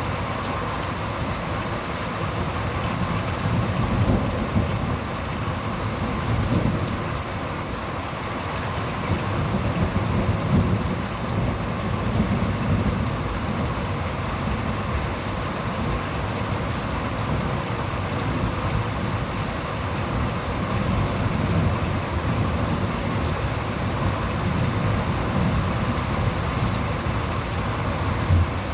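Steady rain falling in a thunderstorm, with low rumbles of thunder swelling and fading several times.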